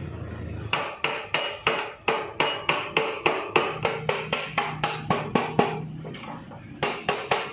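A hammer striking metal in a fast, even run of ringing blows, about four a second, then two more blows after a short pause, with a low steady hum before the first blow.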